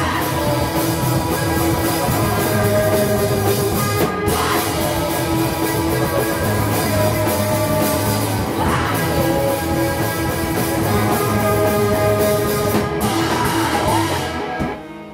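Live rock band playing loud, with guitar and drum kit over a repeating pattern of held notes. The music drops away near the end.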